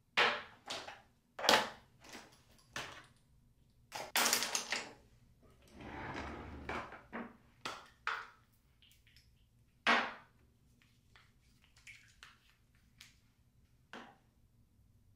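Toiletry bottles and containers being handled on a bathroom counter: a string of sharp knocks and clacks as they are picked up and set down, with one longer, softer sound about six seconds in.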